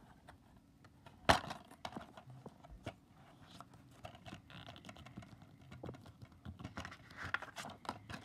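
Handling noise from a plastic DVD case: one sharp click a little over a second in, then scattered light clicks, taps and rustles.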